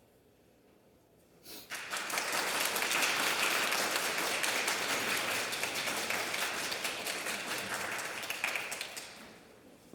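Audience applauding, starting about a second and a half in after a short silence, then dying away near the end.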